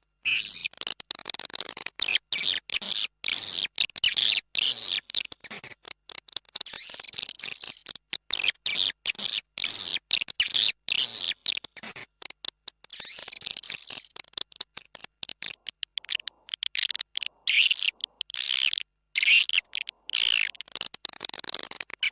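Swiftlet lure-call recording: rapid, dense twittering chirps of swiftlets, chopped by frequent abrupt short gaps. It is the kind of call track played in a swiftlet house to attract birds in the breeding season.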